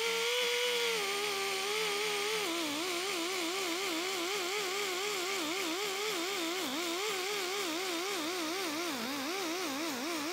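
Pneumatic die grinder with a maroon abrasive disc running at a steady whine while scuffing the surface of a G9 melamine glass-reinforced plastic sheet to give epoxy something to grip. From about two and a half seconds in, its pitch wavers up and down quickly as the disc is worked against the sheet.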